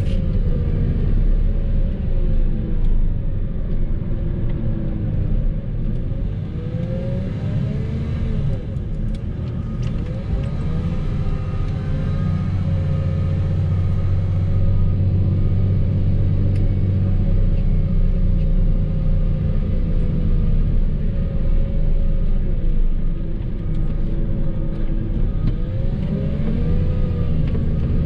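Engine of a snow-plowing vehicle running under load, its pitch rising and falling again and again as it revs up and eases off.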